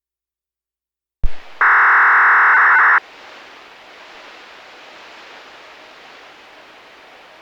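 Radio receiver on the analog municipal disaster-prevention radio channel opening up: a sharp click about a second in, then a loud steady buzz for under a second and a half that cuts off suddenly. After that there is a steady hiss of the open channel.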